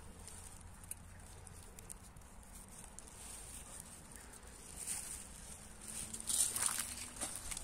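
Rustling and crackling of leaves and plants being handled while wild greens are picked, with scattered light clicks; it grows louder about five seconds in.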